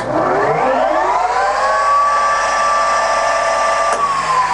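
Colchester Student 1800 lathe spinning up to its top spindle speed of 1,800 rpm: a whine from the headstock gearing rises in pitch for about a second and a half, then holds steady. About four seconds in there is a click as the spindle is switched off, and the whine starts to fall as it runs down.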